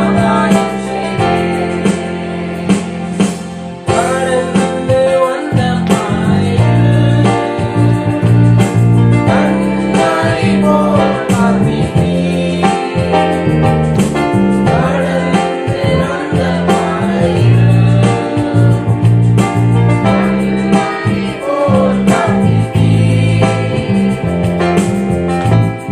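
A worship song: a voice singing a melody over keyboard chords and a steady bass line.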